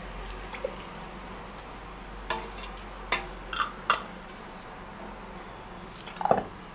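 Kitchen clatter while filling preserving jars: a glass jar set down on a wooden board and a ladle knocking against a pot and a funnel, a handful of short sharp clinks and knocks, the loudest about six seconds in.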